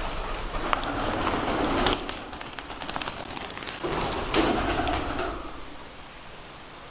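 Birds calling in two bouts of about a second and a half each, the first starting just after the start and the second about four seconds in, with sharp clicks mixed in.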